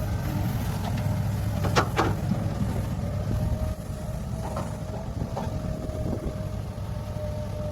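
Heavy diesel earthmoving machinery running, a deep engine drone with a steady whine above it. Two sharp metallic clanks come about two seconds in, with fainter knocks later.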